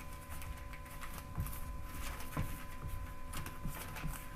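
Scattered light clicks and taps of handling noise, irregular and short, over a steady faint electrical hum.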